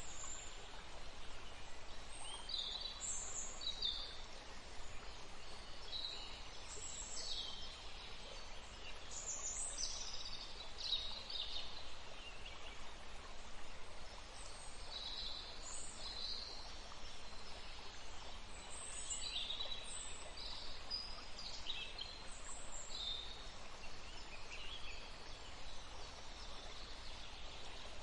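Small birds chirping and trilling on and off over a steady hiss of flowing water.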